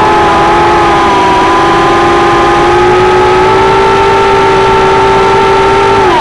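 Hubsan H107 micro quadcopter's four small motors and propellers whining, heard from its onboard camera, several close pitches held steady and loud while it climbs. Right at the end the pitch drops sharply.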